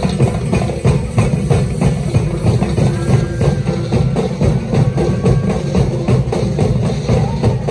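Loud festival street-dance music driven by drums and percussion, a fast run of drum strikes over a heavy low beat.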